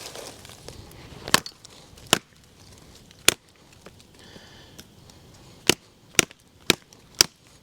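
Old Hickory machete's high-carbon steel blade chopping into wood, seven sharp strikes. Three come spaced a second or so apart, then four follow about half a second apart near the end.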